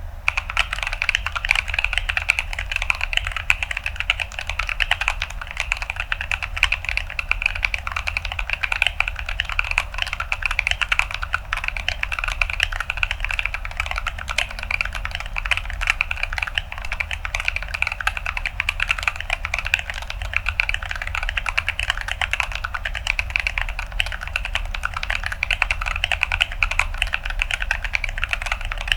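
Continuous fast typing on a mechanical keyboard, an Atlantis AK81ve with Gazzew Boba U4T tactile switches in an acrylic plate and Akko ASA-profile keycaps: a dense, crunchy clatter of keystrokes with no pauses.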